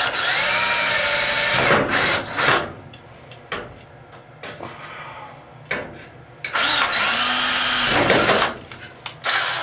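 DeWalt cordless drill boring into a steel stud, in two long runs about five seconds apart, its motor whine rising then holding steady in each, with a couple of short blips of the trigger.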